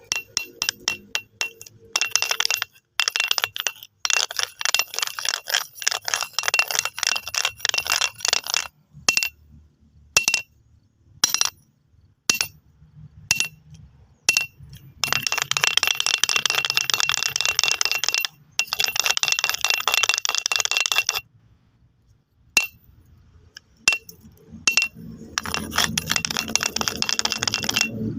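Stones clicking and clattering against each other: scattered single clicks between three long runs of dense rattling.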